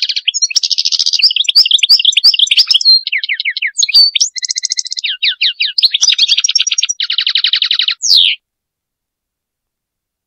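European goldfinch singing: a fast, varied twittering of chirps and rapid trills that stops abruptly about eight seconds in.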